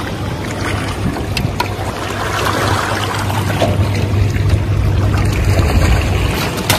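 Rushing water and a low wind rumble on the microphone at the shoreline, with a few light knocks and splashes as a fish is handled in a mesh keep net.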